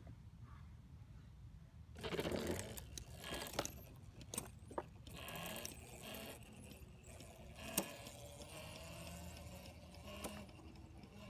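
Homemade electric go-kart with a 48 V 1600 W brushless motor and chain-and-sprocket drive pulling away and running off down the street: a rattling, mechanical drive noise with scattered sharp clicks and knocks. The loudest stretch is a noisy burst about two seconds in.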